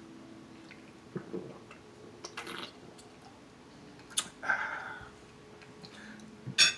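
Gulps of ginger ale swallowed from a can, a breathy exhale a little past halfway, and a sharp knock near the end.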